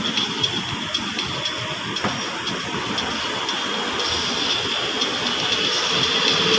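City street traffic ambience: vehicles running on the road alongside, a steady blend of engine noise and hiss that grows slightly louder near the end.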